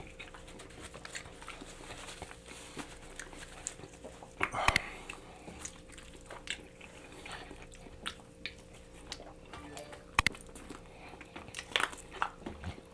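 Close-up eating of saucy chicken wings: wet chewing, lip smacks and sharp clicks of biting and pulling meat off the bone, loudest about a third of the way in and again near the end.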